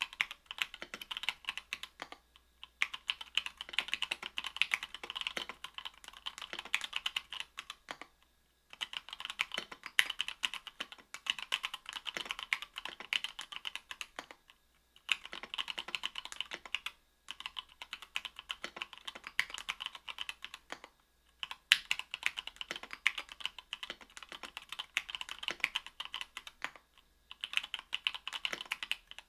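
Octagon V3 mechanical keyboard with stock, unlubed Gateron Milky Yellow 50g linear switches on an aluminium plate, typed on in fast runs of keystrokes. The runs are broken by brief pauses about every three to six seconds.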